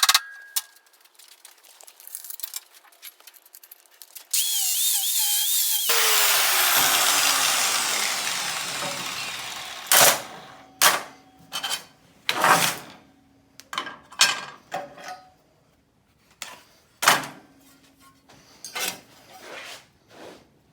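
A power tool runs loudly for a couple of seconds, then winds down with a falling pitch. After that come about a dozen sharp hammer blows on sheet steel, each with a brief metallic ring.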